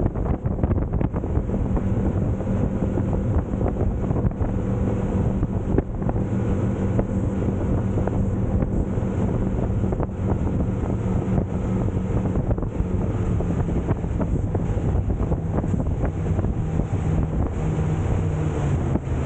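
Clearwater 2508 boat under way: its engine runs with a steady low hum under heavy wind buffeting on the microphone and water noise, and the engine note shifts slightly near the end.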